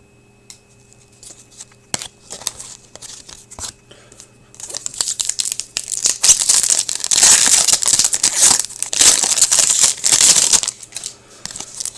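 A few light clicks of cards being handled, then from about halfway in a hockey card pack's wrapper being torn open and crinkled, loud and crackly for several seconds before it dies down near the end.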